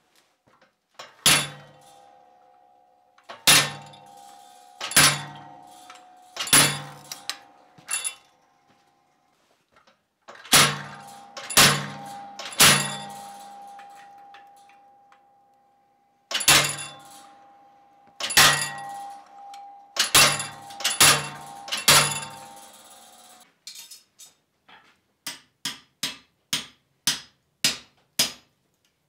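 Hammer blows driving a handled hot punch into a red-hot bar on a punching block: about a dozen heavy strikes in bursts with pauses, each leaving a ringing tone. Near the end these give way to quicker, lighter knocks, about two a second, as a drift is driven to open the punched hole to final size.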